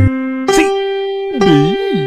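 Cartoon meme soundtrack: a held pitched note that gives way to a new one about half a second in, with swooping pitch glides that dip and rise about a second and a half in.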